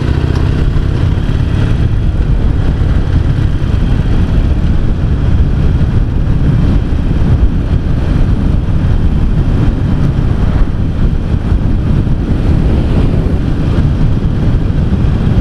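Harley-Davidson XL883C Sportster's air-cooled V-twin engine running steadily as the motorcycle cruises along, mixed with wind noise.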